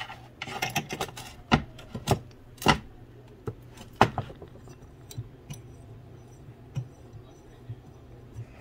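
Sharp metallic clicks and clinks of locking pliers (vise grips) gripping and turning a steel stud as it is screwed into the tapped end of a metal rod held in a bench vise. The clicks come every half second or so for the first few seconds, then turn fainter and sparser, over a low steady hum.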